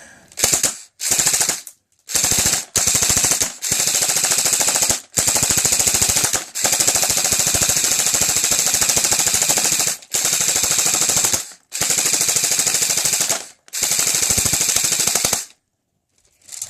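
TF4 Ops M4 airsoft rifle firing on full auto in about ten bursts of rapid shots, most a second or so long, one running over three seconds, with short pauses between.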